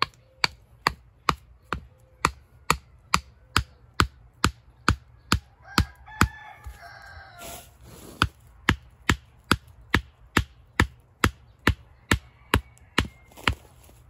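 A wooden stake being pounded into the ground with sharp, steady blows, about two a second. The blows pause briefly around the middle while a rooster crows, then resume.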